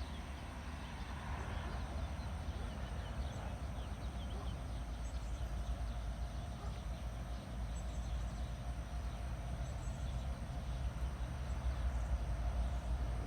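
Distant CSX freight train approaching, heard as a low rumble that slowly grows louder, with a faint steady tone joining about five seconds in.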